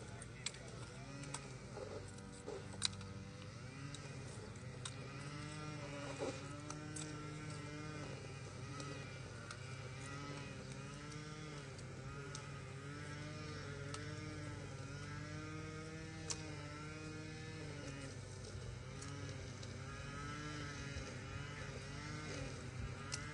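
A few sharp smacks of drill rifles being handled during an armed inspection, over a steady low hum and a repeated tone that rises and falls about once a second.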